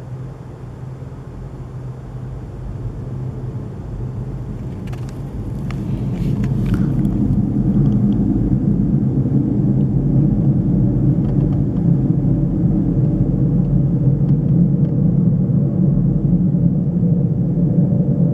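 Low droning rumble with a steady hum in it, swelling over the first eight seconds and then holding steady. It is the unexplained noise heard outside in the night. A few faint clicks come about five to seven seconds in.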